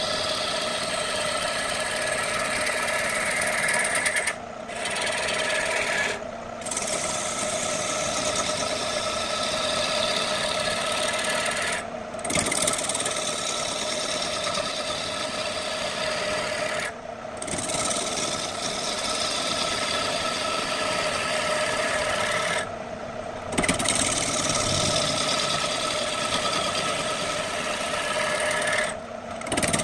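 Turning tool cutting a spinning wooden blank on an electric wood lathe: a steady scraping hiss of shavings being cut over the lathe's steady hum. The cutting noise breaks off for a moment about six times.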